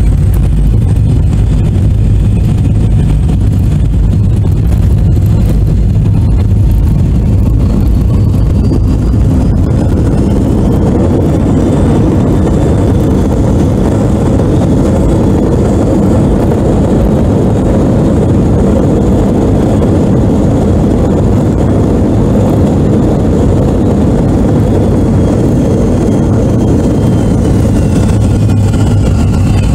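Inside the cabin of an MD-82 on its landing roll: the tail-mounted Pratt & Whitney JT8D turbofans and runway rumble make a loud, steady roar that builds through the middle, in the way reverse thrust does. Near the end the engine whine glides down as the engines spool back.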